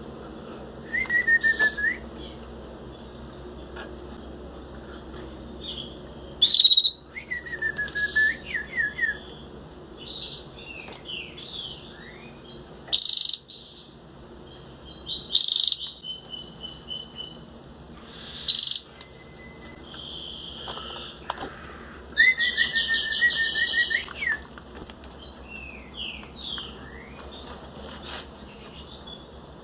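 Belgian canary chicks chirping in short bursts of high notes and quick trills, a few seconds apart.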